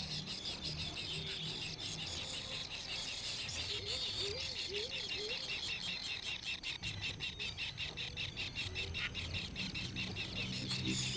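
Baby birds chirping in a fast, even run of high chirps, with four short rising-and-falling lower calls about four to five seconds in.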